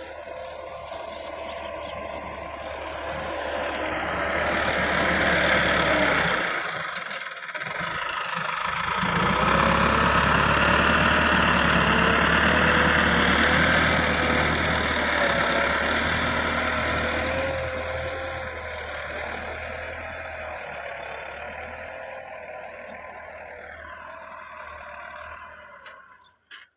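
Massey Ferguson 375 tractor's four-cylinder diesel engine running under load, its pitch wavering. It grows louder twice, with a short break about seven seconds in, then slowly fades.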